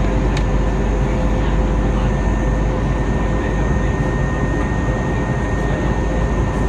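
Steady cabin noise of an Airbus A320 in the climb after take-off: a dense, even rush of engine and airflow, strongest low down, with a few faint steady whines above it.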